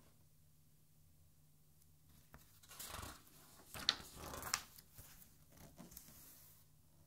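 A single page of a large art album turned over by hand. It starts as a rustling sweep about two and a half seconds in, gives two crisp paper snaps as it flips, then a few softer rustles as it settles.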